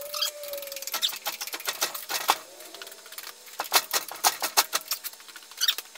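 Ratchet strap being cranked, its ratchet clicking in quick irregular runs as the strap is tightened to drag a heavy lathe.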